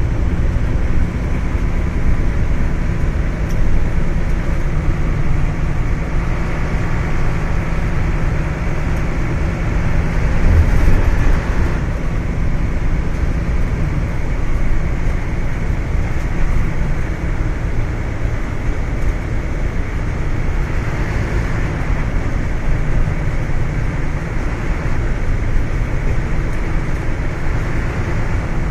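Steady rumble of a vehicle driving at speed, heard from inside its cabin: engine hum and tyre and road noise. It swells slightly about eleven seconds in.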